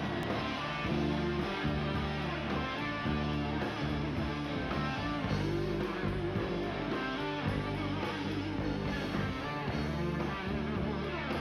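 Rock band playing live, electric guitars over bass and drums, in the song's instrumental intro.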